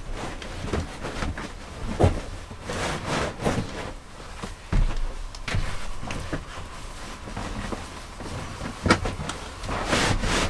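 Footsteps and scattered knocks and thumps of furnishings being moved and set down inside a school bus.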